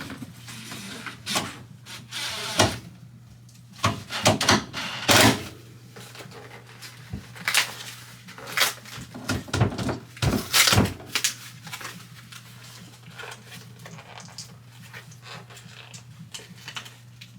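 Irregular knocks, bumps and scraping from things being handled and moved, busiest between about four and eleven seconds in, over a steady low hum.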